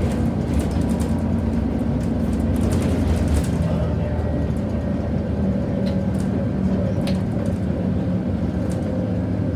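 Scania K94UB city bus's five-cylinder diesel engine running under way, heard from inside the passenger cabin with road noise. A couple of short rattles come in the second half.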